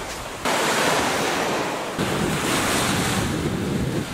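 Small waves breaking and washing up a sandy beach, with wind buffeting the microphone. The sound changes abruptly about half a second in and again about two seconds in, turning rumblier with wind.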